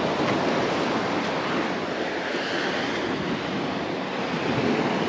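Surf washing onto a sandy beach: a steady, even rush of waves, with wind on the microphone.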